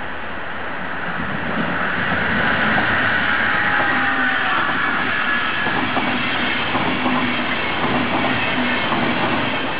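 A regional push-pull train of n-type passenger coaches, pushed by an electric locomotive, passes close by. Steady rumble and rush of wheels on rail build about a second in, with a scatter of clicks as the wheelsets cross rail joints in the second half, and fade near the end.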